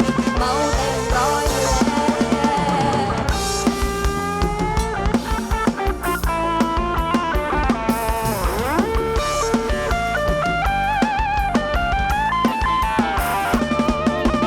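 Live band playing an instrumental ramwong dance tune with no singing. A lead melody with bent notes, diving and rising in pitch about eight seconds in, plays over a steady drum beat.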